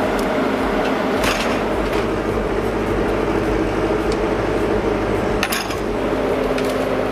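A heavy logging machine's engine running steadily, with two sharp metallic knocks, about a second in and again near the end.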